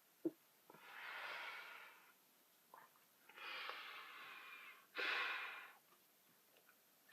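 A young woman breathing heavily in three long, hissing breaths, the last the loudest, as she catches her breath while chugging a disgusting drink. A short click comes just after the start.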